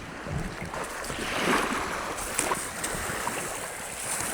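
Wind and small lake waves washing onto a sandy beach: a steady rushing that swells about a second and a half in.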